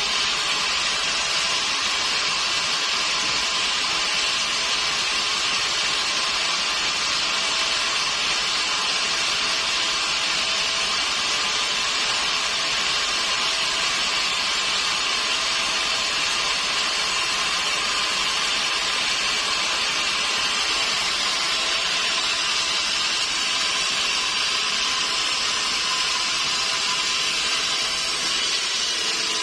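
Sawmill saw cutting through a log: a loud, steady, high-pitched sawing noise that runs on without a break.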